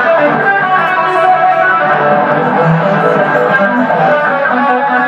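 Stratocaster-style electric guitar played loud through an amplifier, a fast run of lead notes.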